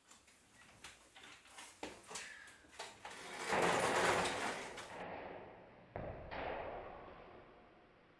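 Light metal frame sections being handled: scattered knocks and clicks, then a louder scrape of metal sliding against metal, and another scrape starting suddenly that fades away.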